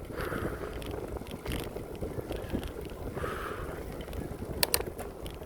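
Bicycle riding along a paved path: steady rolling and wind noise on the microphone, with two sharp clicks close together about four and a half seconds in.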